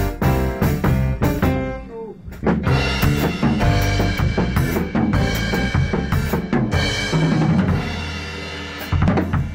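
Drum kit played along with a bass and piano guide track, without a metronome: busy strokes across the drums and cymbals, a brief lull about two seconds in, then a loud crash about nine seconds in that rings on.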